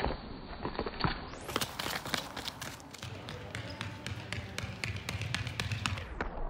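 Running footsteps: sprinters' shoes striking a wet asphalt road, then after a cut about a second in, a sprinter's quick footfalls on an indoor sports-hall floor, a fast run of sharp taps over a low hum.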